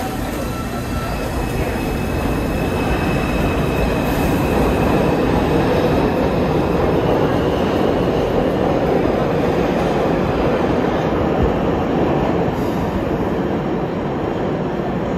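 New York City subway train pulling out of the station and accelerating along the platform, with a steady heavy rumble of wheels on rails and a faint motor whine that rises in pitch. The rumble swells as the cars pass and eases near the end as the train clears the station.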